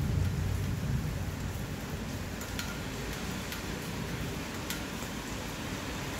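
Steady rain falling, with a few sharp drip taps of water landing close by. A low rumble at the start eases off within the first second.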